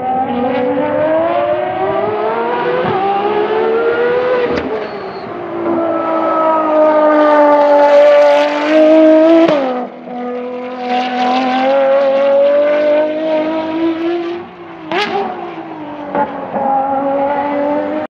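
Ferrari FXX K's 6.3-litre V12 racing engine at full song on track. The pitch climbs under acceleration and drops sharply about four and a half and nine and a half seconds in, with a sharp crack about fifteen seconds in.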